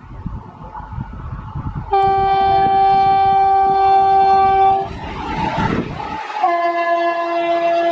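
Indian Railways WAP-4 electric locomotive passing at speed, sounding its horn: one long, loud blast about two seconds in, a rush of train noise as it goes by, then a second long blast, slightly lower in pitch.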